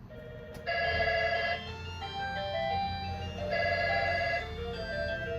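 Electronic ringtone-style melody of short stepping notes, with two louder clusters of chiming tones: one about a second in and another near four seconds, typical of a mobile phone ringing.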